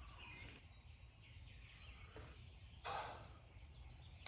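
Near silence: faint background room tone with weak bird chirps, and a brief rustle about three seconds in.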